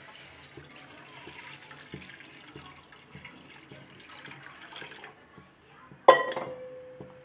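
Water poured from a steel vessel into a wide metal kadai, splashing steadily for about five seconds and then stopping. About a second later comes a sharp metallic clang that rings on and fades, the loudest sound here.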